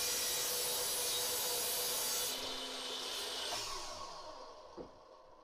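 Compound miter saw running through a cut in a wooden handrail, then switched off a little over two seconds in and spinning down with falling pitch, fading out near the end. A light knock comes just before it dies away.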